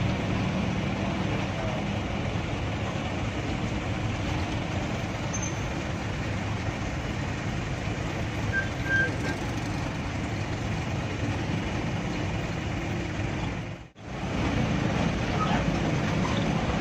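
Cabin sound of a minibus on the move in slow traffic: its 1996 Mitsubishi 120 PS diesel engine running under a steady rumble of road noise. The sound drops out for a moment about three-quarters of the way through, then resumes.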